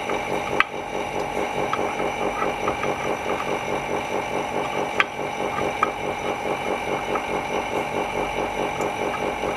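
Laminating machine for phone-screen polarizer film running, a steady rhythmic mechanical hum with a couple of light clicks, one near the start and one about halfway through.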